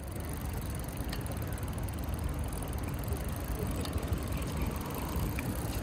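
Wind rumbling steadily on the microphone of a camera moving with a cyclist, with road and outdoor noise beneath and a few faint ticks.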